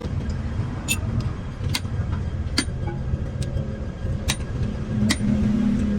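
Six sharp metallic taps, evenly spaced a little under a second apart, over a steady low rumble; a low hum swells near the end.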